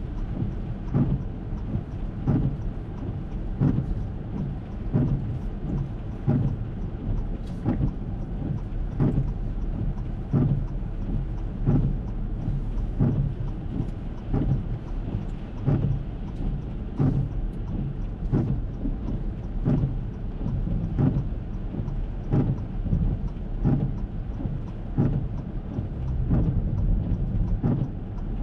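Windshield wipers of an Acura MDX sweeping in rain, with a soft thump about once a second, over a steady low cabin rumble and rain on the car.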